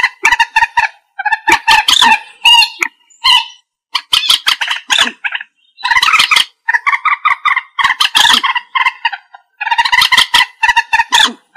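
Common moorhen calling: loud, harsh runs of quick clucking notes in repeated bursts separated by short pauses.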